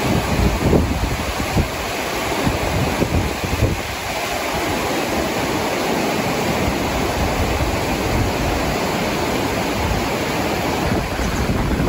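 Steady rush of flowing water, with irregular low gusts of wind buffeting the microphone.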